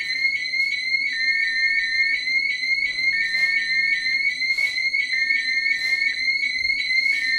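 GST fire alarm sounding its evacuation tone: a high, fast-pulsing electronic tone that repeats several times a second without a break, with a few brief hisses over it.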